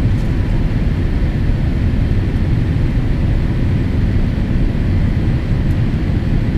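Steady low rumble inside the cabin of a Boeing 787-8 in flight on its descent to land, a mix of airflow and the GE GEnx engine beside the window seat.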